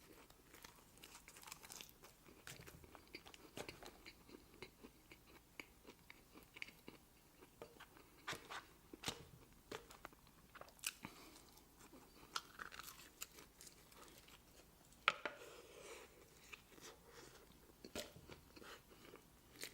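A person chewing and biting food close to the microphone: faint wet mouth clicks and soft crunches, with a sharper crunch about fifteen seconds in.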